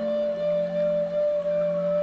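Soft, slow ambient background music: one long held melody note over a low sustained bass note.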